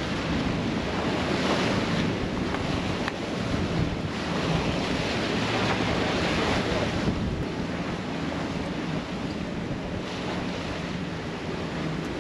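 Wind buffeting the microphone over the rush of sea water around a sailing yacht, swelling and easing, loudest in the middle.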